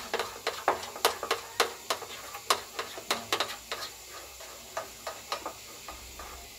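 Metal spoon clinking against a glass bowl as batter is stirred quickly, baking soda and baking powder being mixed in. The taps come about three a second, then thin out after about three and a half seconds.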